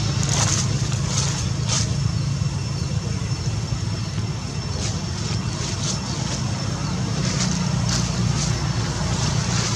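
Steady low outdoor rumble, with brief high-pitched chirps now and then.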